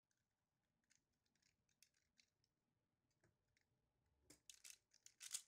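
Plastic 3x3 speed cube clicking as its layers are turned by hand: faint scattered clicks that come quicker and louder over the last second or so.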